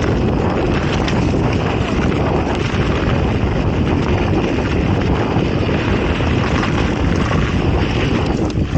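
Wind rushing over an action camera's microphone on a fast mountain-bike descent, mixed with the rumble of tyres over the trail and a few clicks and knocks from the bike.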